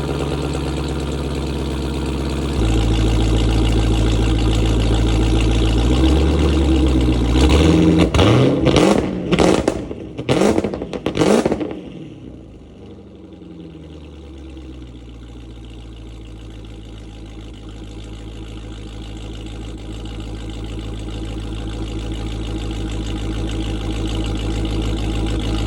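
Supercharged SRT Hemi V8 on a cold start, idling high and steady. About a quarter of the way in it is blipped several times in quick succession, with sharp crackling pops from the exhaust between the revs. It then settles back to a quieter, lower idle.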